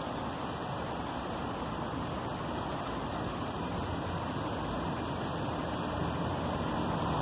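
Steady rushing outdoor background noise, even and unbroken, with no distinct wingbeats or calls standing out.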